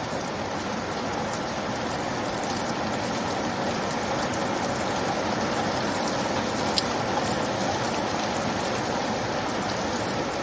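Steady rainfall, an even hiss of falling rain without a break, with a single sharp drop tick about two-thirds of the way through.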